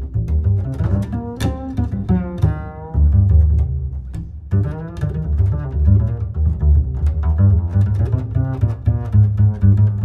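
Background music with a prominent bass line under a pitched melody.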